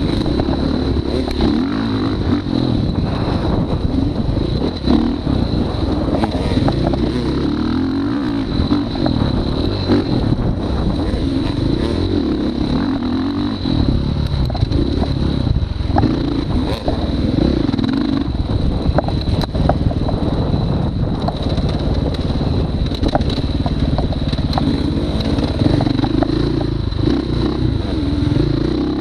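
Motorcycle engine revving up and down as it is ridden around a short track, heard from close on the rider's body with wind noise on the microphone.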